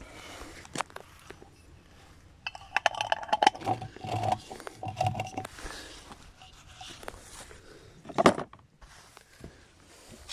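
Metal clinking and rattling for a few seconds, with scrapes and scattered clicks and one sharp knock near the end.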